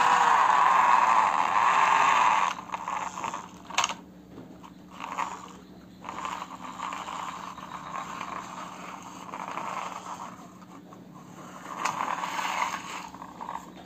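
Plastic toy excavator pushed by hand across a hard floor: a loud, steady grinding whir for the first two and a half seconds, then short, uneven scrapes and rattles as its plastic tracks and gears roll and stop.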